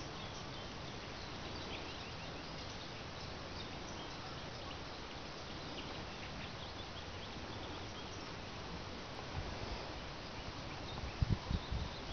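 Outdoor ambience: a steady faint hiss with small birds chirping lightly throughout, and a few dull low thumps near the end.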